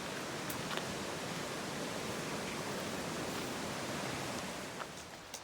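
Small river rushing steadily beside a footpath, a continuous hiss of running water that falls away about five seconds in.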